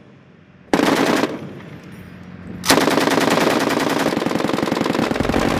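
Belt-fed machine gun firing: a short burst about a second in, then after a pause a long, continuous burst from just under three seconds in.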